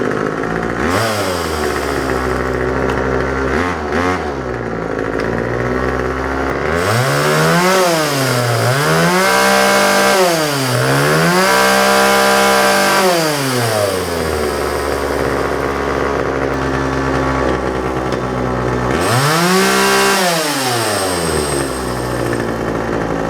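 Homelite 33cc Ranger two-stroke chainsaw running: a steady idle with quick throttle blips, then revved up and down several times and held at high revs in the middle, back to a steady idle, and revved once more near the end. It picks up and drops back to idle cleanly, a saw that runs well.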